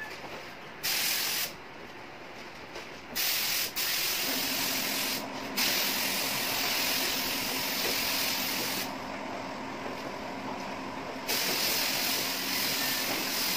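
Gravity-feed compressed-air spray gun spraying candy-red 2K urethane paint: a hiss of air and atomised paint in long passes, stopping for about a second and a half near the start and again briefly about five seconds in, as the trigger is let go between passes. A faint low steady hum sounds underneath from about four seconds in.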